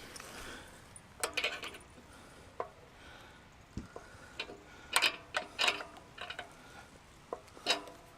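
Short clinks and rattles of metal parts as a gas fitting is screwed onto the underside of a Cadac gas barbecue, in a few brief clusters: about a second in, around five seconds in, and near the end.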